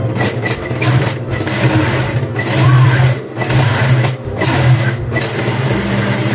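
Industrial high-speed straight-stitch sewing machine running as it stitches a seam, a steady motor hum with the rattle of the needle, stopping briefly about four times as the fabric is guided.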